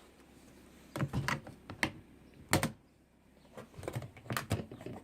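A series of sharp clicks and knocks from a box being handled and opened, in scattered groups with a cluster near the end.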